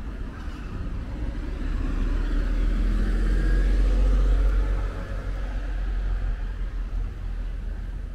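Street traffic: a car drives past, growing louder from about two seconds in and fading about five seconds in, over a steady low rumble.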